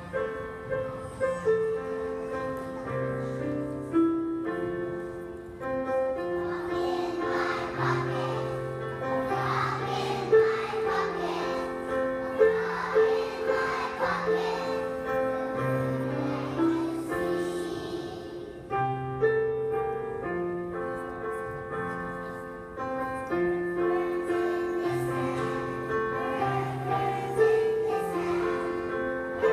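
A large group of young children singing a song together as a choir, with piano accompaniment playing held notes and a steady bass line.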